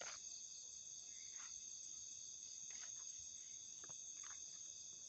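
Faint steady chorus of crickets and other night insects at several high pitches, with a few faint brief crackles scattered through it.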